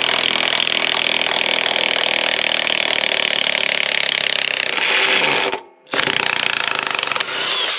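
Craftsman V20 high torque cordless impact wrench hammering steadily as it backs an 8-inch lag screw out of wood. It stops briefly a little over five seconds in, then resumes hammering.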